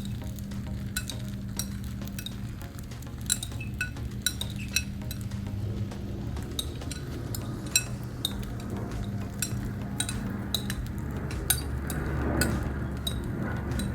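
Metal spatulas clinking and scraping against the steel top of a Blackstone griddle while the omelette is worked, many sharp clicks at irregular intervals over a steady low hum.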